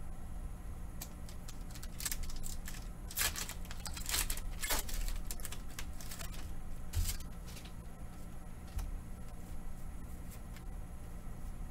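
Foil wrapper of a Pokémon card booster pack crinkling and tearing as it is opened, in short bursts a couple of seconds in, with one more brief crinkle a little later.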